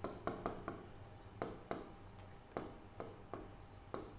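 Pen writing on an interactive display board: about a dozen faint, sharp taps and short scratches at irregular intervals as the strokes are drawn.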